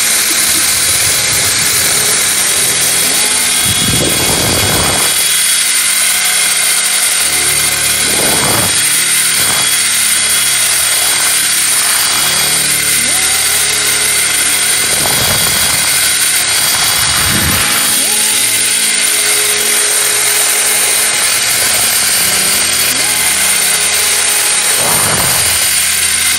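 Cordless drill running a paddle mixer, stirring black epoxy resin in a plastic bucket with a steady motor whir.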